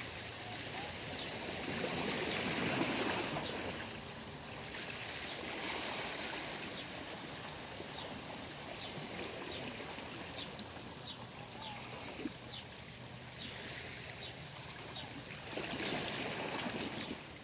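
Wind noise on the microphone, swelling in gusts about two seconds in and again near the end, with a run of faint, short, high chirps in the middle.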